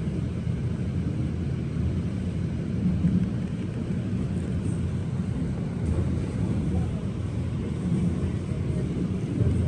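Steady low rumble of a suburban electric train running along the track, heard from inside the passenger carriage.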